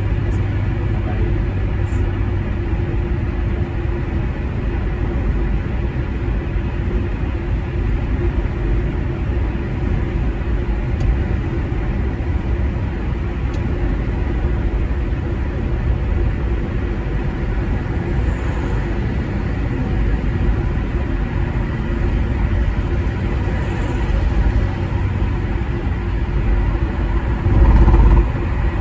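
Car driving at highway speed, heard from inside the cabin: steady low tyre and engine rumble. Near the end a louder low rumble swells for under a second.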